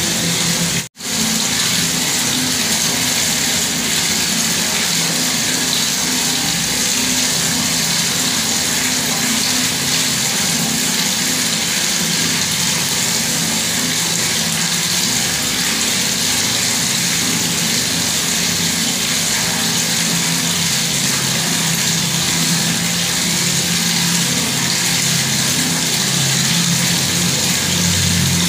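Water running steadily from a bathroom tap, an even rushing splash, with a momentary dropout to silence about a second in.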